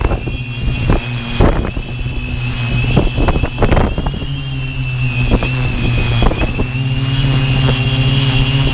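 Quadcopter's electric motors and propellers humming steadily with a high motor whine, heard from the onboard camera, while gusty wind buffets the microphone, more often in the first half.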